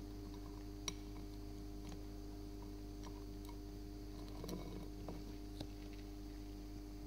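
Faint scattered clicks from a hermit crab's legs and shell knocking on a ceramic plate, with a sharp click about a second in and a short scrape as it climbs off onto sand about four and a half seconds in. A steady electrical hum runs underneath.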